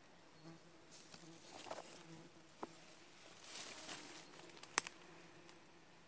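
Flying insects buzzing in a faint, steady hum, with soft rustling of leaves and grass. A sharp click comes a little before the end and is the loudest sound.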